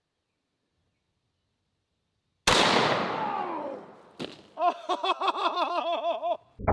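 A single shot from a 4 bore rifle about two and a half seconds in: a sharp crack that rings out and dies away over about a second and a half. Near the end a man's voice cries out in quick pulses, about four a second.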